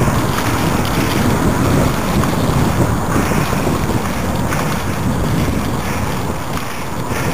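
Wind buffeting the microphone of a moving mountain bike, a steady rushing rumble, mixed with tyres rolling through wet mud and a few light knocks and rattles from the bike.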